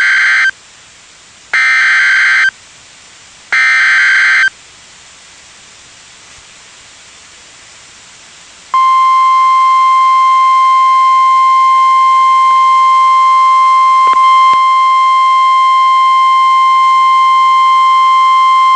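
Emergency Alert System SAME header on NOAA Weather Radio: three one-second bursts of harsh digital data about two seconds apart, the first already under way. After a few seconds of hiss comes the steady single-pitched 1050 Hz weather radio warning alarm tone, held about ten seconds. Together they announce a severe thunderstorm warning.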